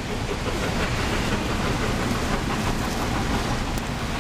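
Steam-hauled passenger train running away over the tracks, its coaches rolling on the rails, with steady rain falling.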